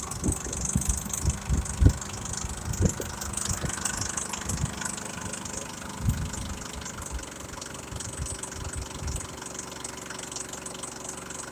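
Isuzu D-Max 3.0 L four-cylinder turbo diesel engine idling steadily, with irregular low thumps over roughly the first six seconds.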